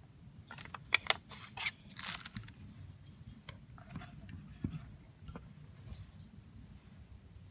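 Makiri knives being handled and moved about: a quick run of sharp clicks and scrapes about half a second to two and a half seconds in, then a few fainter ticks.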